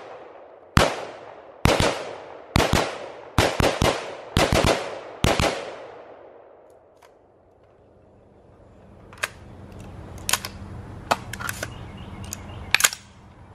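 Semi-automatic fire from an AR-style rifle: a string of sharp, ringing shots about a second apart, some in quick pairs, over the first five or six seconds. After a short pause come a few fainter sharp cracks.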